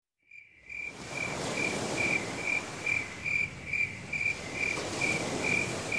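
Cricket chirping at night, an even high-pitched pulse about twice a second, over a steady background hiss.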